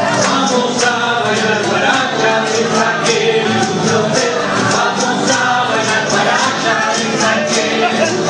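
Music with a group of voices singing over a quick, steady percussion beat.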